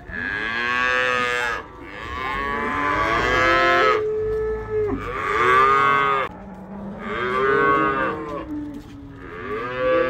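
Cattle mooing: five long calls about two seconds apart, each rising and then falling in pitch, with a flat, steady lower call between the second and third.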